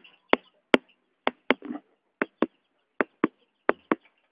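A regular series of sharp clicks, mostly in pairs about a quarter second apart, with roughly one pair every three-quarters of a second.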